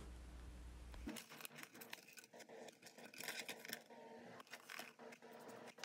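Faint, scattered scratching and small ticks as fingernails pick and peel dried liquid masking film off a plastic cockpit insert.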